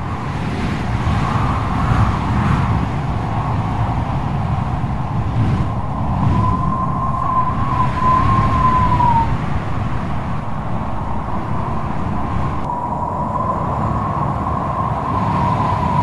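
Strong wind and heavy sea surf: a loud, steady rushing noise, heaviest in the low end. A thin, slightly wavering whistle comes in about six seconds in and dips away about three seconds later, then returns near the end.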